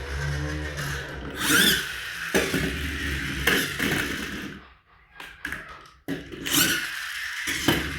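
Battery-powered toy's small electric motor whirring, with plastic clicks and knocks. The whirring drops out for about a second in the middle, then starts again abruptly.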